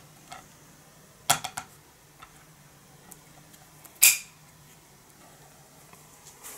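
Metal pull-tab lid of a fish tin clicking and crackling as it is peeled back and rolled up: a few quick sharp clicks a little over a second in, and a louder crackle about four seconds in.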